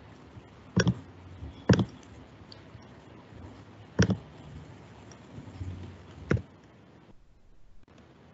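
Four sharp clicks from a computer being operated, spaced about one to two seconds apart, the last one a little after six seconds in.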